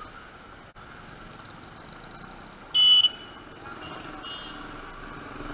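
Steady traffic and riding noise at a busy road junction, with a short, loud, high-pitched vehicle horn beep about three seconds in and a couple of fainter beeps just after.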